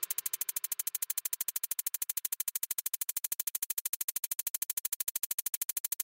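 Quiet electronic pulsing: a rapid, perfectly even train of short pulses, about ten a second, like a synthesizer buzz.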